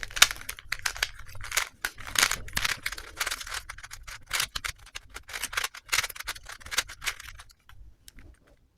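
Plastic Rubik's Cube being twisted fast over and over to scramble it: a rapid, uneven run of clicks and clacks as its layers turn, thinning to a few clicks near the end and then stopping.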